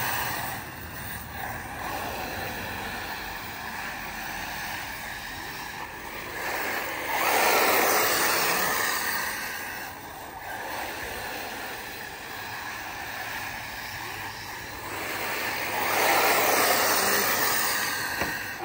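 Three electric 1/8-scale RC buggies (Arrma Typhon 6S) racing on a dirt track: motor whine and tyres scrabbling through loose dirt, getting loud as the pack passes close about seven seconds in and again about sixteen seconds in.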